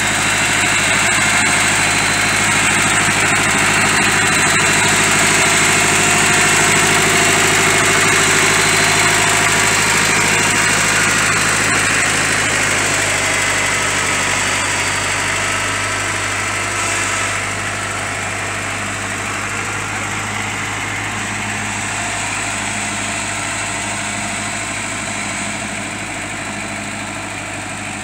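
Ford farm tractor's engine running steadily as it tows a truck by a chain, growing somewhat fainter about two-thirds of the way through.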